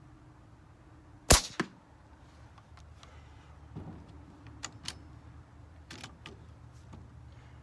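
Umarex Gauntlet .25 calibre PCP air rifle firing one shot, a sharp crack followed a fraction of a second later by a second, weaker crack, then a few quieter clicks and knocks.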